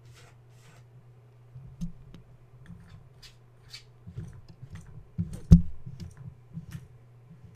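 Kittens playing and scuffling: scattered light clicks, scratches and rustles of claws and paws, with one louder thump about five and a half seconds in. A steady low hum runs underneath.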